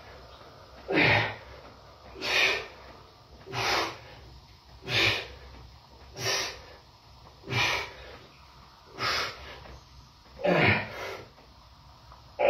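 A man's forceful breaths while pressing dumbbells, one sharp exhale per rep. There are about eight of them, evenly paced a little over a second apart, and the last one is doubled.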